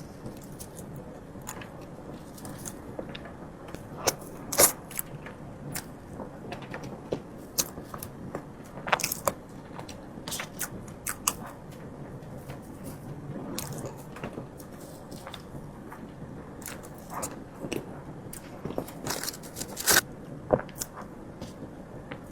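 Close-miked eating sounds: a person chewing and biting, with irregular sharp mouth clicks and smacks, a few louder ones about four, nine and twenty seconds in.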